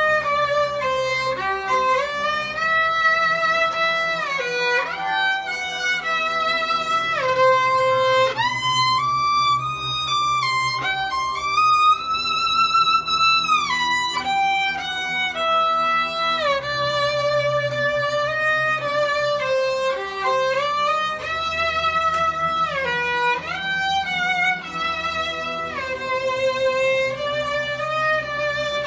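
Solo violin playing a slow melody of long held notes, sliding up and down in pitch between them.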